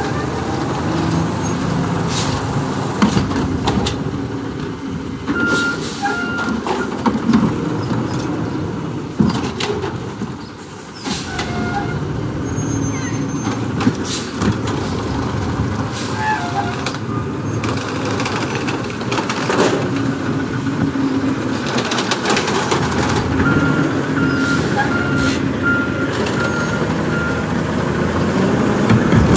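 Natural-gas-powered automated side-loader garbage truck running, with several short hisses from its brakes and lifting arm. Steady warning beeps at about two a second sound briefly a few seconds in and again for several seconds near the end.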